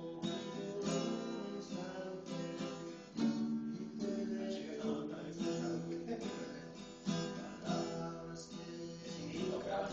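Acoustic guitar strummed in chords, with a stroke about once a second.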